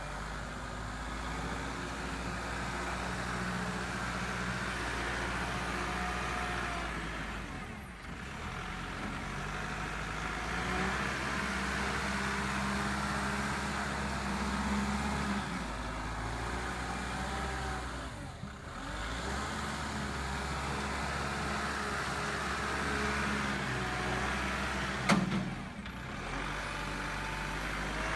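Kubota compact tractor's diesel engine running under load as its front loader works soil, the engine speed rising and falling and dipping briefly twice. A single sharp knock sounds near the end.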